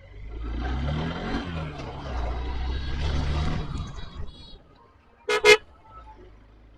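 A motor vehicle engine running in traffic, its pitch dipping and rising a little over a second in, then fading. About five seconds in there is a single short horn toot.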